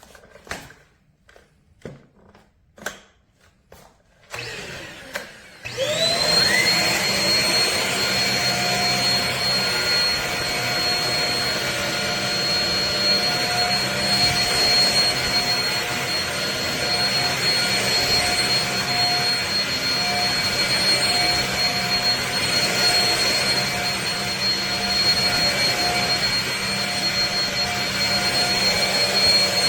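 A few clicks, then the Shark Rocket corded stick vacuum switches on about six seconds in. Its motor whine rises quickly and settles into a steady high-pitched whine over the rush of airflow.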